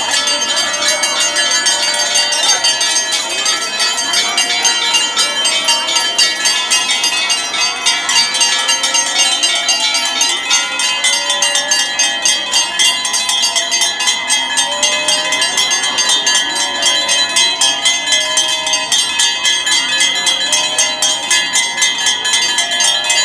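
Temple bells ringing without a break, struck in a fast, even rhythm so that their ringing tones hold throughout. People's voices run underneath.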